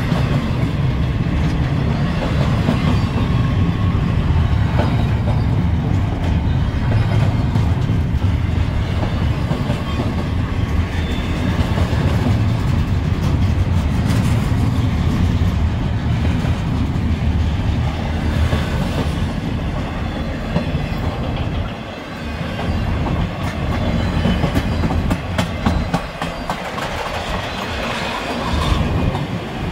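Freight train cars, double-stack intermodal well cars and then autoracks, rolling past: a steady low rumble of steel wheels on rail with repeated clacks as the wheels cross the rail joints. The rumble eases briefly a few times in the last third.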